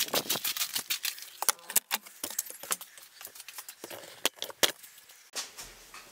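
Footsteps crunching on gravel, giving way to sparser footsteps and clicks on a hard floor. A faint low hum comes in near the end.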